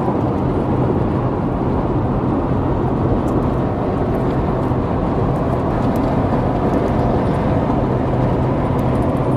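Steady road and engine noise inside the cabin of a vehicle driving at highway speed, a constant rumble with a low hum underneath.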